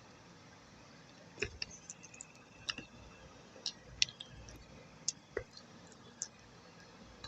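Thick wet clay paste giving a run of small sticky clicks and smacks, about a dozen, irregularly spaced.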